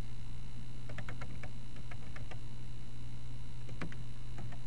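Computer keyboard keys clicking irregularly as a word is typed, over a steady low hum.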